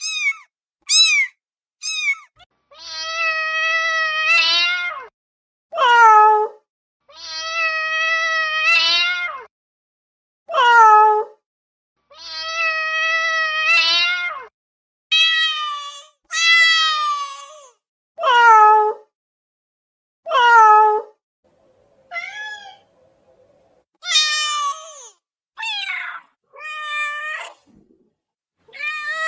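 Domestic cats meowing repeatedly. A few short high-pitched meows open, then three long drawn-out meows held at a steady pitch, then a series of shorter meows that fall in pitch at the end.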